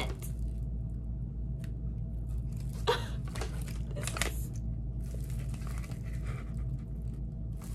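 Clear plastic pot sleeve and kraft packing paper crinkling in a few short rustles as a potted plant is handled, over a steady low hum.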